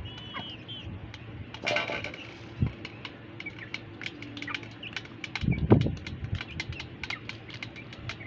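Young chickens pecking grain from a steel bowl: rapid sharp clicks of beaks striking the metal, with a few high chirps early on and a short burst of bird sound. A dull thump a little past halfway is the loudest sound.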